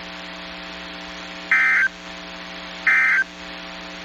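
NOAA Weather Radio SAME end-of-message data bursts: two short, shrill warbling digital tone bursts about 1.4 s apart, marking the end of the alert broadcast. They sound over a steady electrical hum.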